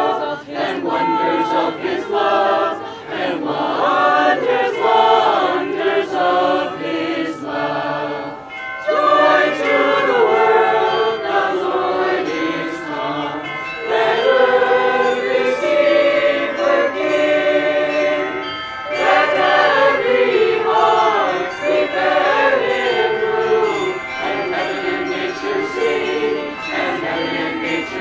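A choir singing a Christmas carol, many voices together on sustained, shifting notes.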